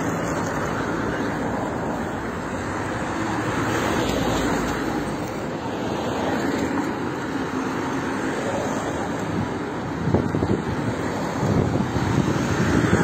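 Steady rushing noise of wind on a phone's microphone mixed with road traffic, with a few knocks in the last few seconds.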